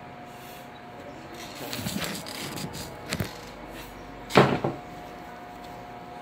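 Phone handling noise: rustling, then a sharp knock as it is set down on a tiled floor. About four seconds in comes a loud, short, rough burst, over a faint steady hum.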